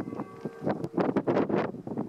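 Wind buffeting the microphone in irregular gusts, with a faint steady hum underneath.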